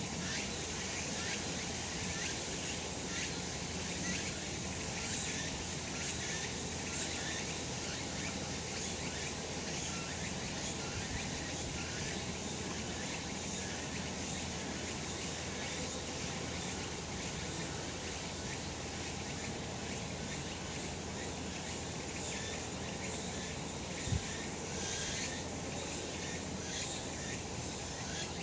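A chorus of cicadas singing steadily, a dense high buzzing with constant flickering. About 24 seconds in there is a single brief low thump.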